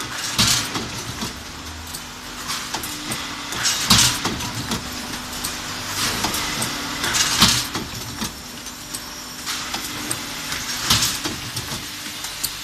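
Handle welding and hole-punching machine for metal cans cycling: four loud bursts of hiss and clatter, about three to four seconds apart, over a steady machine hum.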